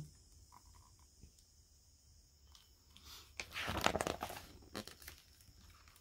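A picture book's paper page rustling as it is turned and the book is handled, starting a little past halfway and loudest for about a second.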